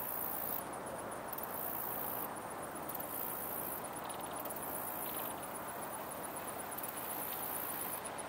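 Outdoor ambience: insects buzzing very high in pitch, in bursts that start and stop every second or so, over a steady rush of background noise.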